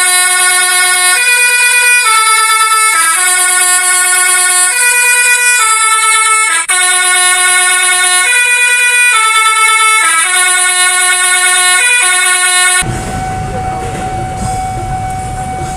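A multi-tone 'telolet' horn plays a tune of held notes, changing about once a second. Near the end it cuts off abruptly to a steady rumble with a faint steady tone.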